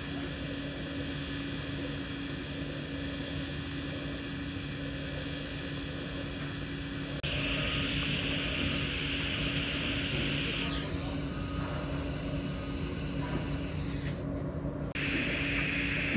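TIG welding arc on stainless steel pipe: a steady hiss over a low steady hum. The hiss turns louder and brighter abruptly about seven seconds in.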